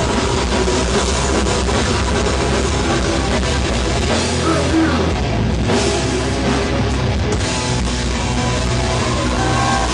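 Death metal band playing live: distorted guitars and a drum kit, loud and dense without a break.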